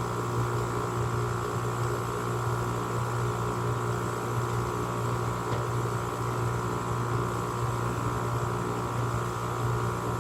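GE window air conditioner running just after start-up, its LG rotary compressor humming steadily with the fan, with a steady higher whine over the hum, as the refrigerant starts to circulate.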